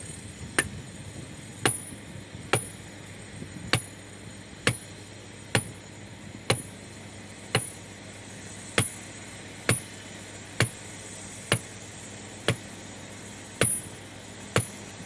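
Sledgehammer striking stone in a steady rhythm of sharp, ringing blows, about one a second and around fifteen in all.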